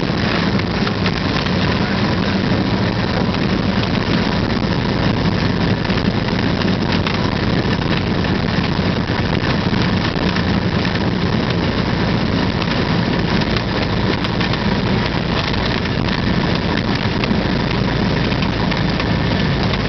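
Cessna 172's piston engine idling steadily with the propeller turning during the landing roll-out, heard from inside the cockpit as an even cabin drone.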